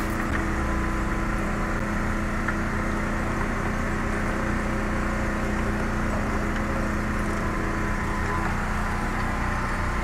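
Steady machine hum, a low drone that holds at an even level throughout.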